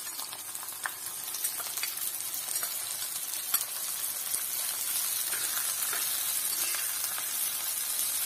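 Dried prawns sizzling in hot oil in an iron kadai, the sizzle growing louder over the first few seconds as they fry, with a few light clicks of a steel spoon stirring them.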